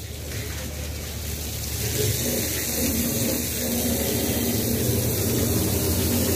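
Water from a hose spraying and splashing against a fire engine's side locker and pouring onto wet concrete, a steady hiss that grows louder about two seconds in, with a low steady motor hum underneath.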